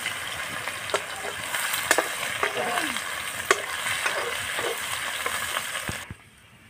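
Chopped garlic sizzling in hot oil in a metal kadhai, stirred with a metal spatula that clicks and scrapes against the pan several times. The sizzle stops abruptly near the end.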